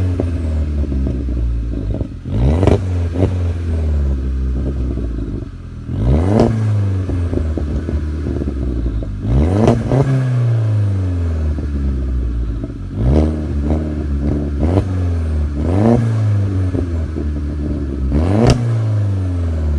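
Volkswagen Bora 1.8T turbocharged four-cylinder engine, remapped and fitted with a straight-through exhaust, blipped from idle about seven times, every two to three seconds. Each rev rises sharply and then falls slowly back to idle, with crackles and pops from the exhaust as it drops.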